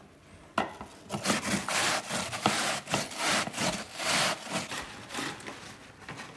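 Apple being grated on a hand grater: repeated rasping strokes, about two a second, starting about half a second in.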